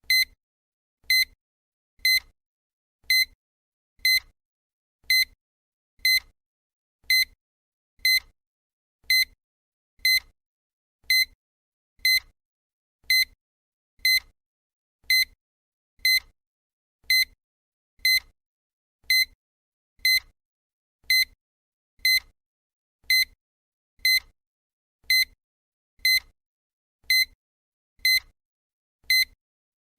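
Countdown timer sound effect: a short, high electronic tick repeating evenly about once a second, one for each second counted down.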